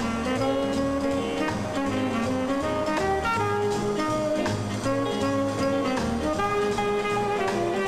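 Jazz background music with saxophone and brass carrying the tune over a bouncing bass line and drums.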